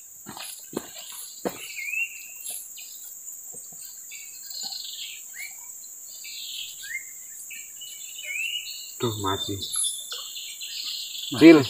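Forest ambience by a river: a steady high drone of insects, with birds calling in short rising and falling whistles throughout. There are a few clicks in the first two seconds.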